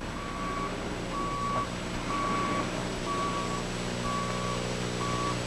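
Wheel loader's reversing alarm beeping about once a second, six half-second beeps, as the machine backs up. Under it, the loader's diesel engine runs steadily.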